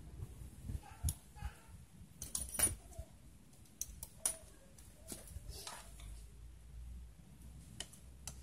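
Scattered clicks and light metallic jangling from combination pliers and a copper starter cable being handled and twisted into a loop. A faint low steady hum comes in about six seconds in.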